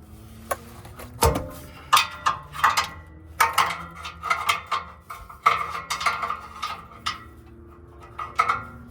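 Hand tools clinking on metal: a wrench and ratchet working a tight fastener under the car, in irregular bursts of sharp metallic clicks and knocks, each with a short ring.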